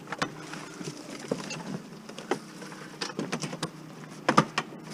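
Scattered light knocks and clicks, loudest about four and a half seconds in, over a faint steady low hum.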